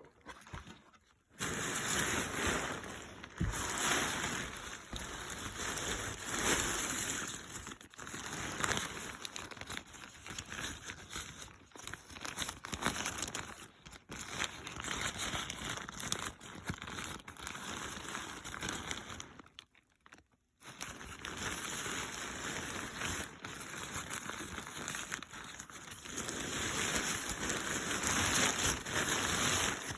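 Packaging being handled and opened: continuous irregular crinkling and rustling, with two short pauses.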